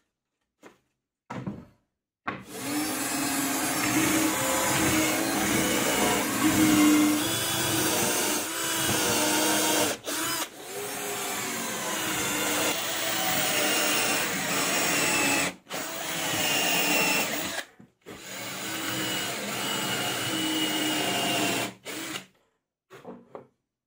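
20 V cordless drill boring holes into plywood, its motor running under load in four long runs separated by brief stops.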